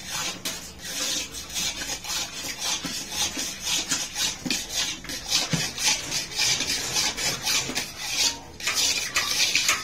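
A long iron stirring rod worked up and down through milk in a large iron karahi, in quick even strokes about three a second, the metal scraping and knocking against the pan.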